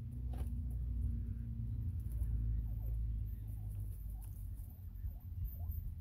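Northern bobwhite quail making several faint, short soft calls over a steady low rumble.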